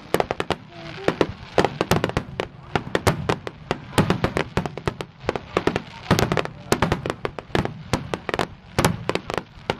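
Fireworks display: aerial shells bursting in a rapid barrage, several sharp bangs a second with no let-up.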